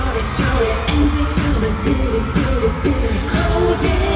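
Live K-pop song played loud over a concert sound system: a heavy bass beat with drum hits under sung vocals.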